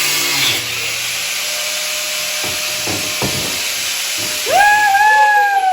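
Angle grinder grinding off a metal side rail: a steady harsh hiss with a few knocks. Near the end its motor whine comes up louder and then falls steadily in pitch as the disc spins down.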